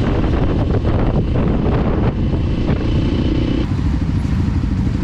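Motorcycle engine running under way, heard from the rider's own bike as a dense low rumble. The sound changes abruptly about three-quarters of the way through.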